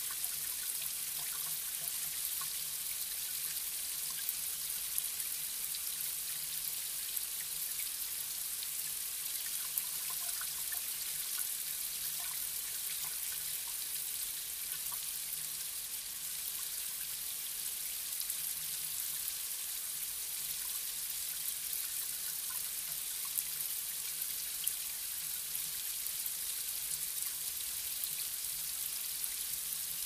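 Light rain falling on pavement: a steady high hiss of water with scattered small drips and splashes.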